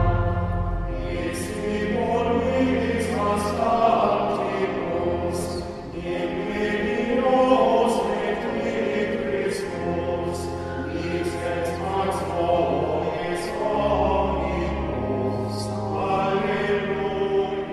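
Choral music: several voices singing held, layered chords over sustained low bass notes.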